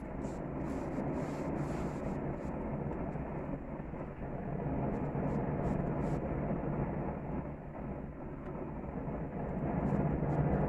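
Tri-tip cooking on a gas grill: a steady rush of burner flame mixed with sizzling, with scattered small pops and crackles, swelling louder near the end.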